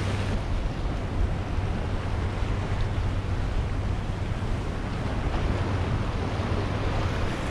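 Waves washing against the rocks of a jetty, a steady rushing noise, with wind buffeting the microphone in a low rumble.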